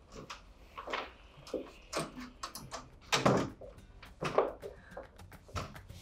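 A room door being opened and shut, with several sharp knocks and clatters; the loudest come about three and four seconds in.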